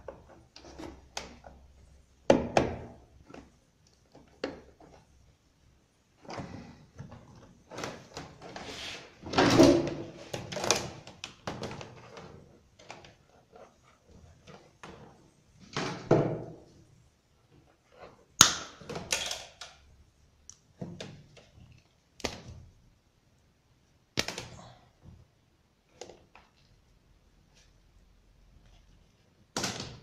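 Hands handling electrical wires and plastic connectors inside a washing machine's control panel, giving scattered, irregular knocks, clicks and rubbing against the plastic housing.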